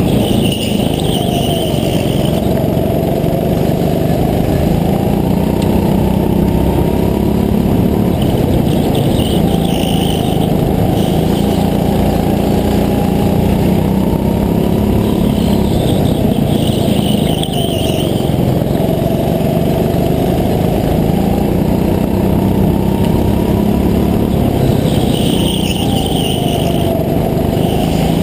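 Go-kart engine running hard, heard from on board the kart, its pitch rising and falling as it speeds up on the straights and backs off for the corners. A brief higher-pitched hiss comes back about every eight seconds.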